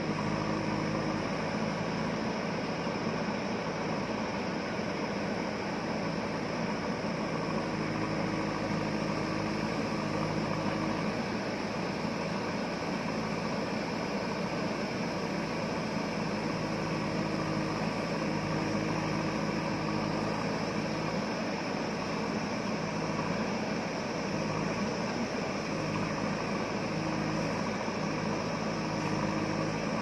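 Diesel engine of a JCB 3DX backhoe loader running steadily while the backhoe arm digs into a hillside.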